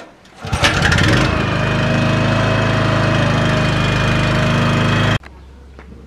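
Second-hand portable petrol generator being started: a burst of cranking about half a second in, then the engine catches and runs steadily. It cuts off suddenly about five seconds in, leaving a quieter low hum.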